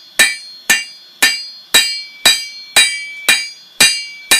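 Hand hammer striking a piece of O1 tool steel on an anvil in a steady rhythm, about two blows a second with nine in all, each leaving a short metallic ring. The blacksmith is drawing out and thinning a flint-and-steel striker.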